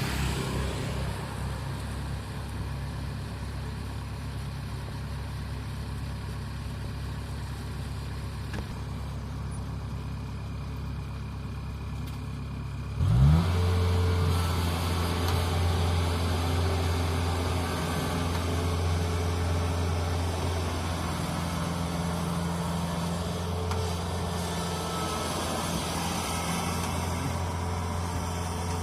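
Kubota DC-70 Plus combine harvester's diesel engine running steadily. A little before halfway it revs up sharply, then keeps running louder and steady at the higher speed.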